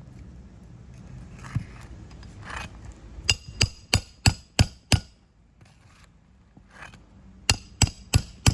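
Shingle hammer striking a roof snake to drive roofing nails under a lifted shingle. Six sharp, ringing metal-on-metal blows come at about three a second, then after a pause four more near the end.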